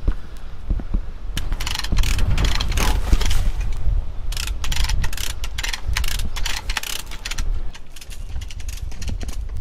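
Hand come-along ratcheting in quick runs of clicks as it is cranked to stretch woven-wire fence tight against a steel T-post. The clicking starts about a second and a half in and stops about two seconds before the end.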